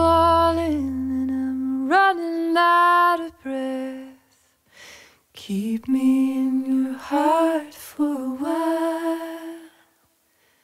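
Slow solo vocal melody of long held notes that slide into pitch, over a low drone that stops about two seconds in. The voice breaks off for short pauses about four and five seconds in and falls silent just before the end.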